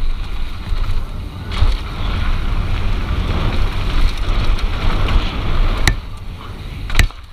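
Wind buffeting a GoPro's microphone on a downhill mountain-bike run, over the rush of tyres rolling across dirt and rock. The trail noise grows louder from about a second and a half in, and two sharp knocks come about a second apart near the end.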